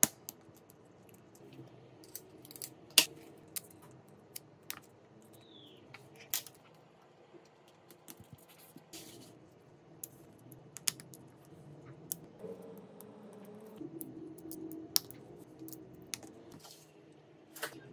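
Scattered sharp clicks and light taps of small repair tools and phone parts being handled, about a dozen, the loudest about three seconds in.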